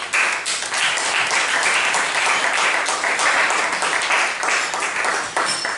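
Applause: many people clapping together, loud and continuous, starting suddenly and dying away near the end.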